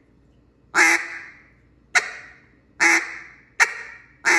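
Duck call blown by mouth practising the two-note bouncing hen: a hen quack, then a short clipped tick, then another quack and tick, with about a second's pause between notes, and a further quack starting near the end.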